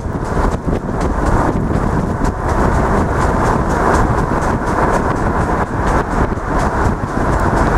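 Steady wind buffeting on the microphone and road noise from a moving car, recorded out of its window on a wet road.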